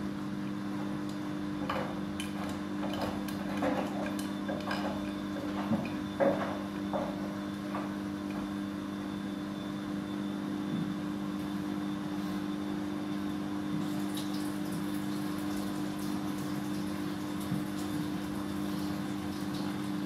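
Siemens front-loading washing machine running its wash cycle: the drum tumbles wet laundry with water sloshing over a steady hum. There are a few louder splashes or knocks in the first several seconds.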